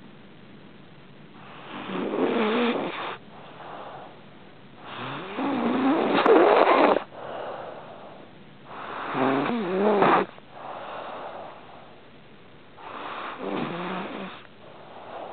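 A sleeping pet snoring: four loud, rasping snores about four seconds apart, each followed by a softer breath.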